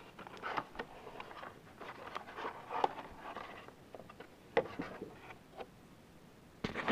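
Cardboard collector box and plastic blister pack being handled as a boxed figurine is slid out: scattered rustles and scrapes with light knocks, the sharpest about four and a half seconds in.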